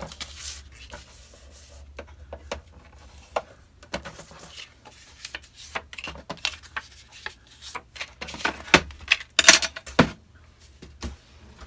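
Bone folder scoring small pieces of patterned cardstock along the grooves of a plastic scoring board: light scrapes, rubs and taps. Near the end comes a louder cluster of knocks and rustles as the paper and board are moved off the mat.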